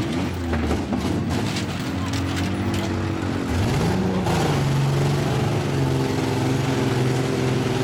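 Demolition-derby SUVs' and mini trucks' engines running, one revving up with a rising pitch about halfway through. Several knocks and clatters sound during the first few seconds.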